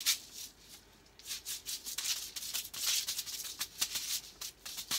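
Rattling, maraca-like shaking from small handheld objects being shaken, tossed up and caught, with sharp clicks among the rattles.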